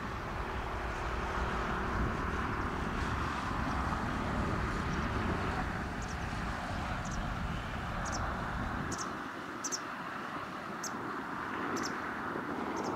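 Distant Beechcraft King Air 350 twin turboprop droning steadily as it flies over, with a low rumble that drops away about nine seconds in. A series of short high chirps comes in over the second half.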